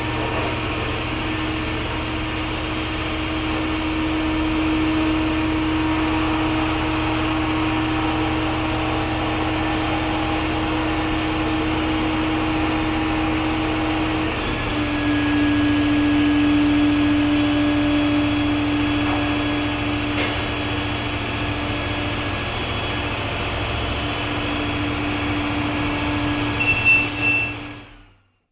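Hydraulic lift's pump motor running with a steady hum, its pitch dropping slightly about halfway through. A couple of clunks near the end, then the motor cuts off.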